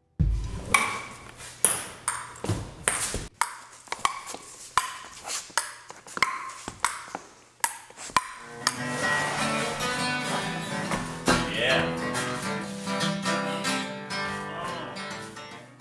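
Acoustic guitar: single plucked notes ringing out one at a time, then from about halfway, fuller picking and strumming.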